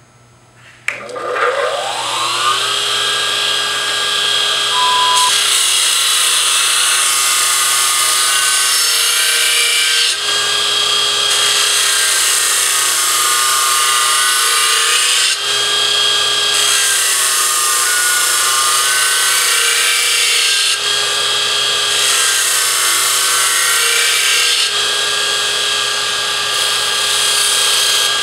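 A Burr King X400 belt grinder with a 1 hp motor starts up with a rising whine about a second in, then runs steadily. From about five seconds in, a dull steel lawn mower blade is ground against the abrasive belt: a harsh hissing grind in about five passes of four to five seconds each, broken by short pauses where only the motor hum is heard.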